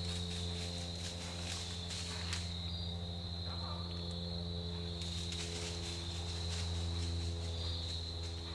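Crickets calling in a steady, unbroken high trill, over a constant low hum.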